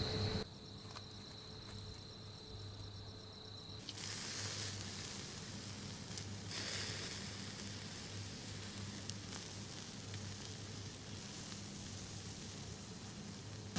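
Food sizzling in a frying pan: a steady hiss with a few small pops.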